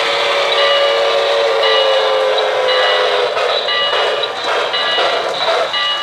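O-gauge NYC J1e Hudson model steam locomotive's sound system blowing a long whistle, which dips slightly in pitch and fades about three seconds in. Under it runs the steady noise of the train rolling on three-rail track.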